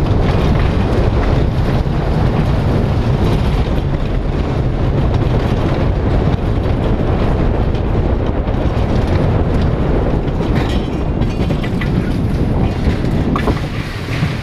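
Mine-train roller coaster car running fast along its steel track: a steady loud rumble and rattle of the train on the rails, with a few sharper clicks near the end as it comes onto the straight toward the station.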